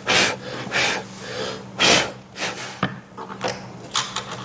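Screws being hand-threaded into the table's pre-drilled holes during furniture assembly, with parts and hardware handled: a string of short scrapes and knocks, about seven in four seconds.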